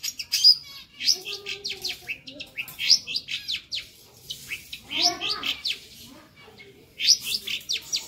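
Long-tailed shrike (cendet) singing a rapid run of quick high, sweeping notes mixed with harsher lower ones, with a brief pause about two-thirds of the way in. Its lively song, full of fill-in phrases, is used as a training recording for other songbirds.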